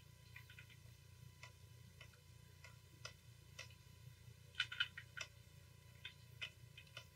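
Faint, irregular small clicks, with a quick cluster of louder ones a little past halfway, over a low steady hum. The clicks come from computer input during digital painting, such as a tablet pen, mouse or keys.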